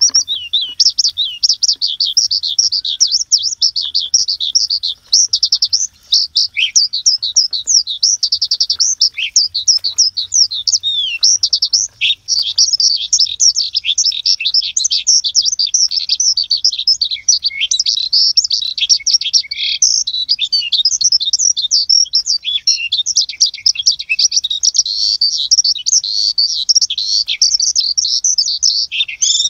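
Many small birds chirping in a dense, unbroken stream of rapid, high-pitched notes.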